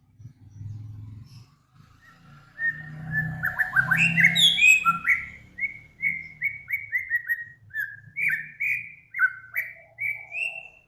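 A songbird singing clear whistled notes that slur up and down, building into a quick run of short notes, about three a second, over a faint low rumble.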